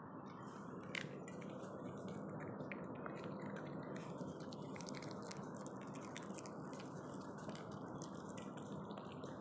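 A small dog chewing and licking a piece of chicken on the bone, making soft wet clicks, with one sharper click about a second in and the clicks coming thicker in the second half. A steady low hiss runs underneath.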